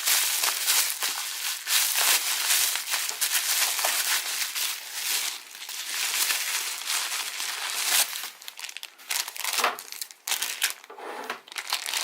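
Packaging crinkling and rustling as a watch is unwrapped from its bag by hand: dense crinkling for about eight seconds, then sparser rustles and handling noises.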